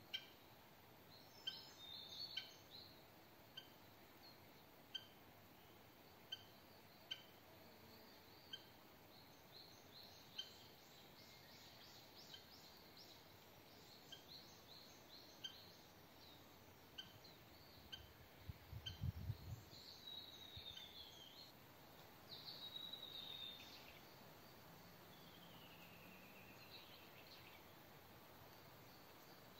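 Faint outdoor ambience of birds calling: a short high chirp repeated about every one and a half seconds, with a few descending whistled notes in the second half. A brief low thump comes about two-thirds of the way through.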